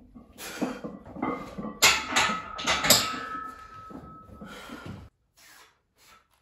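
A 300 lb barbell is racked on steel Rogue squat stands after a set of squats, with heavy breathing from the lifter. Two loud metal clanks come about a second apart, and a ringing tone hangs on for a couple of seconds after them.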